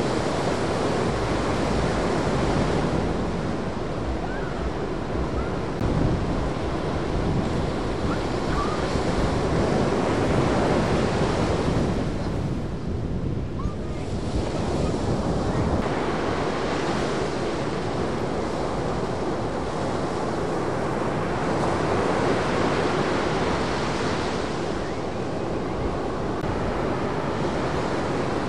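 Ocean surf washing and breaking continuously, with wind rumbling on the microphone. The hiss of the wash eases briefly about halfway through, then builds again.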